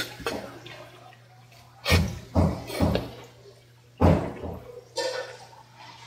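Wet knocks and slaps of a knife and rock bream fillet against a plastic cutting board during filleting: a sharp click at the start, then two quick runs of three thuds about two seconds apart.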